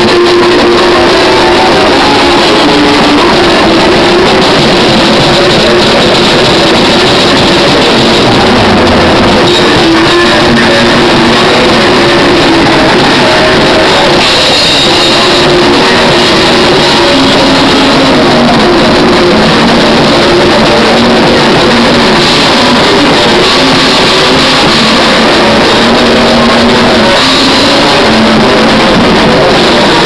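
Metalcore band playing an instrumental with no vocals: electric guitars, bass and drum kit. The recording is so loud that it is distorted.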